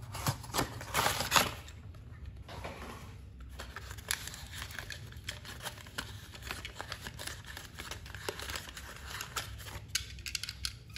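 Cardboard toy box and its plastic insert being opened and handled: rustling and crinkling with many small clicks, the sharpest clicks in the first second and a half, as a small diecast car is slid out.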